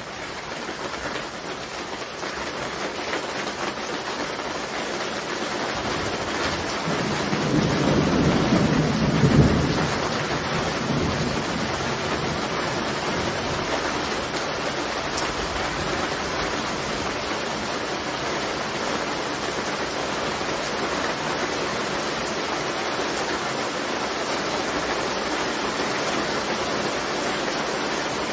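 Heavy thunderstorm: steady rain falling, swelling over the first few seconds, with a low rumble of thunder that builds from about six seconds in, peaks near ten seconds and dies back into the rain.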